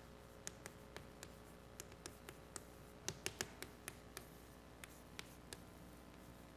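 Chalk tapping and scratching on a blackboard as symbols are written: faint, irregular clicks, with a quick run of them about three seconds in.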